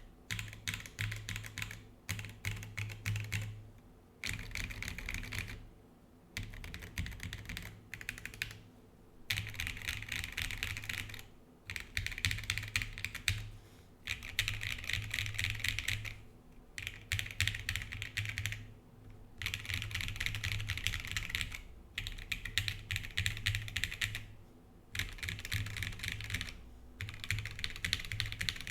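Typing on a Geonworks Frog TKL mechanical keyboard: SP-Star Meteor White switches on an aluminium plate in a rubber tadpole mount, with PBT keycaps. The keystrokes come in fast runs of a few seconds each, broken by short pauses.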